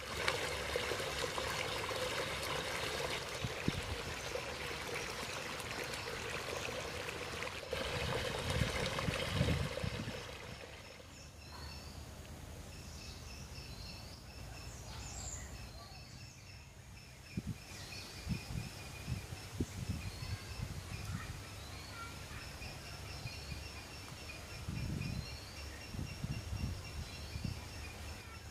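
Water pouring steadily for about ten seconds, then a quieter stretch with short high chirps repeating in the background and a few soft knocks.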